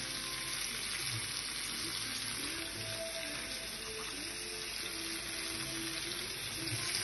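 Fish and onion chunks frying in oil in a pan: a steady sizzle.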